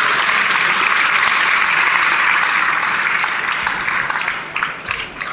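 Arena crowd at an ice hockey game applauding, a dense steady wash of clapping that thins out after about four seconds, with a few sharp knocks near the end.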